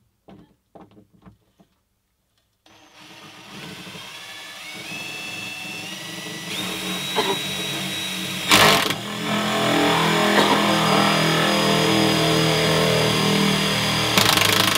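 Cordless drill with a hole saw cutting through a boat's fiberglass hull. A few short clicks come first. About three seconds in, the motor spins up with a rising whine and runs steadily under load, with one sharp louder burst just past the middle.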